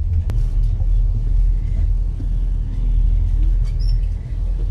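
Steady low rumble of a ferry's engines heard inside the passenger cabin, with a single sharp click about a quarter second in.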